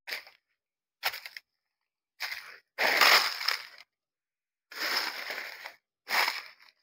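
Footsteps crunching and rustling through dry leaf litter and undergrowth, in about six irregular bursts, the longest lasting about a second, with silence between them.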